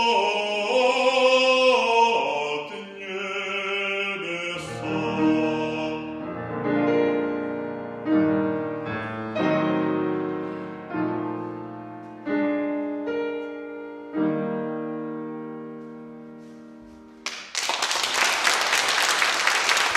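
A male singer holds the final phrase of a romance over a Steinway grand piano, and his voice stops about four and a half seconds in. The piano then plays a closing series of slow chords, each struck and left to die away, and applause breaks out near the end.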